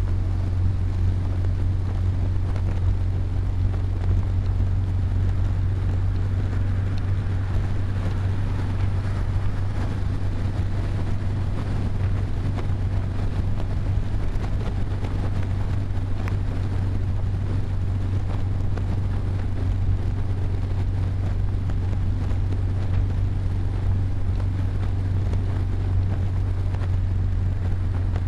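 Steady low rumble of road and engine noise heard inside a car cruising at highway speed.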